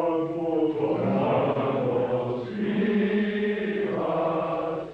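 Voices chanting in long held notes that change pitch every second or so.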